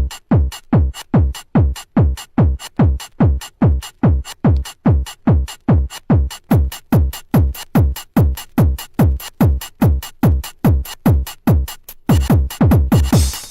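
Intro of a mákina (Spanish hard-techno) track: a drum-machine kick drum alone, thumping four-on-the-floor at a little over two beats a second, each hit dropping in pitch. Near the end a hissing noise swell rises over a quick roll of kicks.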